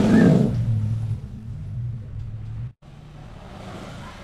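A motor or engine running with a low, steady hum, swelling loudest right at the start, then dropping out briefly near three seconds in and going on quieter.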